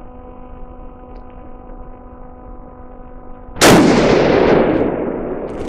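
A single rifle shot from a custom Magnum Research Mountain Eagle in 28 Nosler about three and a half seconds in. The sharp report trails off in a long fading tail of about two seconds.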